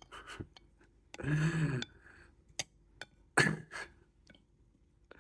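A man eating with chopsticks at the table: scattered light clicks and clinks of the chopsticks against a ceramic bowl, a short hummed vocal sound about a second in, and a brief cough-like exhale just past the middle.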